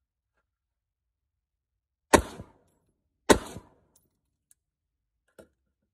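Two rifle shots from a Smith & Wesson M&P15X AR-15 fitted with a Tacfire tank compensator, about a second apart, each followed by a short echo. A faint click near the end.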